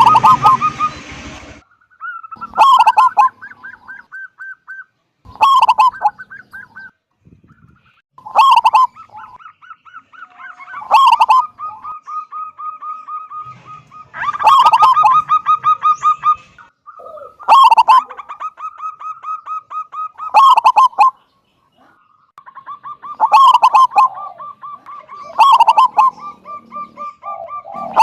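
Zebra dove (perkutut) cooing its song over and over: each phrase a loud opening note followed by a fast run of short, staccato notes, about nine phrases a few seconds apart. A brief burst of noise at the very start.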